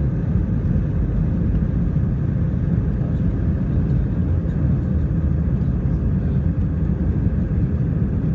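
Airbus A319 cabin noise as the airliner rolls along the ground: a loud, steady low rumble of the engines and wheels, with no rise or fall.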